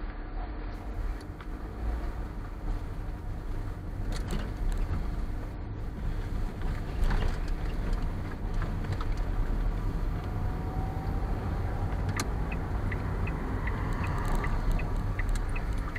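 Inside a car driving slowly over a rough gravel lane: a steady low engine and tyre rumble with scattered knocks and rattles from the bumpy surface. About three-quarters of the way in, the turn-signal indicator starts ticking, about two ticks a second, as the car nears a junction.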